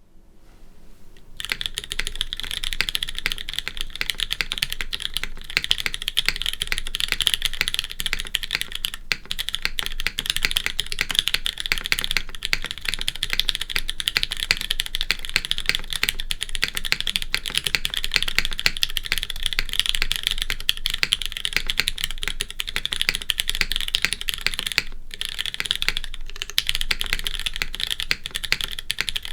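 Fast, continuous typing on a Merisi Sessantacinque top-mount mechanical keyboard with Cherry MX2A Brown tactile switches on an FR4 plate and GMK keycaps. The keystrokes start about a second and a half in, with short pauses twice.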